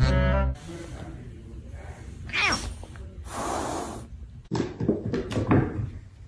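An angry grey house cat: a short cry that bends in pitch, then a hiss lasting under a second, then a louder string of broken cries. A saxophone music track ends about half a second in.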